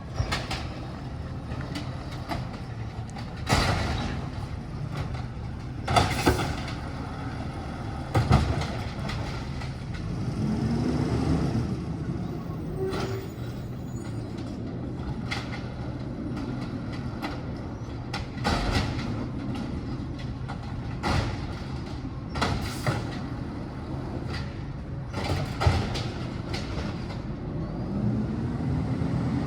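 Recycling truck's diesel engine running steadily, revving up and back down twice, about a third of the way in and again near the end. About half a dozen sharp metallic bangs and clanks are spread through it.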